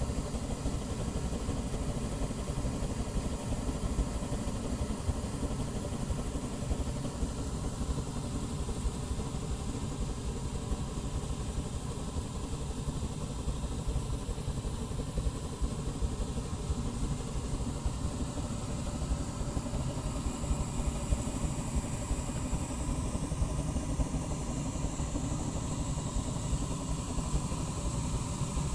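Oil/gas-fired burner and blower of an aluminium melting furnace running steadily: a dense low rumble, with a faint high hiss coming in about two-thirds of the way through.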